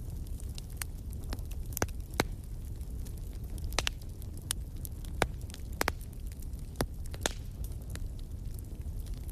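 Wood fire crackling in a fireplace: irregular sharp pops and snaps, a few louder than the rest, over a low steady rumble of the flames.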